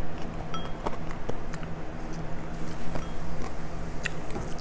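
Close-up eating noises: sucking and nibbling at a chicken foot held to the mouth, with small wet clicks and ticks, over a steady low hum.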